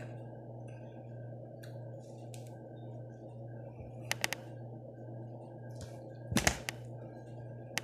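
Crunchy eating sounds over a steady low hum: three quick crisp crunches about four seconds in as toasted bread is chewed, then a louder click and knock a couple of seconds later as a hand goes into the plastic takeaway tray.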